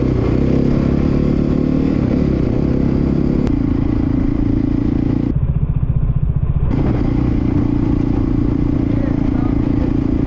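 Dirt bike engine running steadily under way, at a fairly even pitch. About halfway through, it sounds briefly muffled for around a second.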